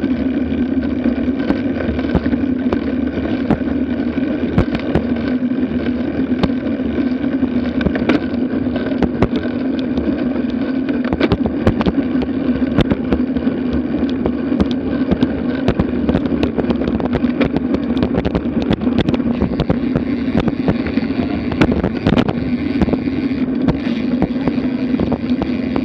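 Wind and road rumble picked up by a Garmin Virb action camera on a bicycle riding at speed. Frequent small knocks and rattles come through from bumps and cracks in the pavement.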